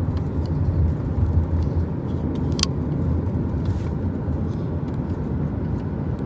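A steady low rumble, with a few faint light clicks over it.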